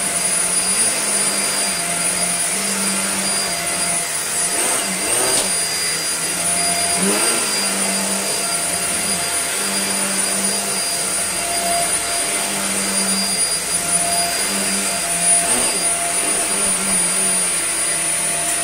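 Dyson Small Ball (UP15) upright vacuum cleaner running on its minimum suction setting with a steady high-pitched motor whine, pushed back and forth over a shag rug. Its brushroll, new and with the housing cleared of fluff, drags on the pile in pulses. At the very end the motor is switched off and winds down with a falling whine.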